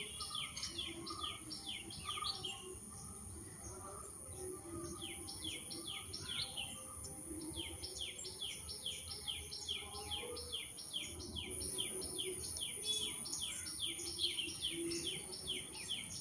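A bird calling in fast runs of short downward-slurred chirps, about five a second, broken by a couple of brief pauses.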